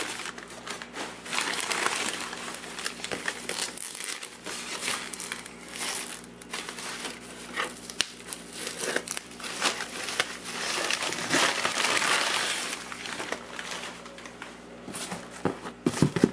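Bubble wrap and shredded-paper packing crinkling and rustling as hands pull it out of a cardboard box, irregular throughout, with a busier stretch about two-thirds of the way through.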